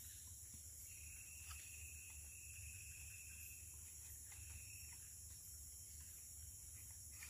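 Quiet tropical forest ambience: a steady high-pitched insect chorus, joined by a lower, thin steady tone held for about four seconds from about a second in.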